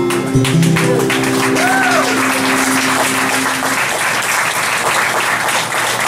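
Audience applauding as the final strummed chord of an acoustic guitar rings and fades out over the first few seconds.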